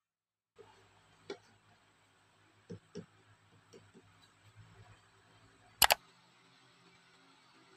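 Quiet room tone with a few soft taps and knocks, then a sharp double click a little after the middle.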